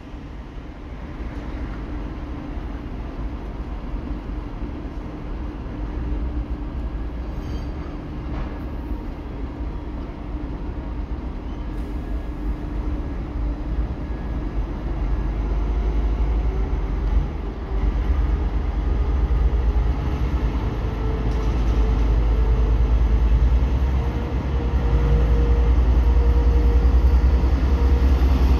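TEP70BS diesel locomotive pulling a passenger train away and drawing closer: a deep engine drone that grows steadily louder, its pitch slowly rising in the second half as the engine is throttled up.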